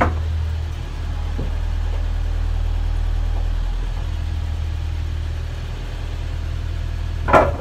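Steady low machine hum, like an engine or motor running at idle. A short sharp knock comes near the end.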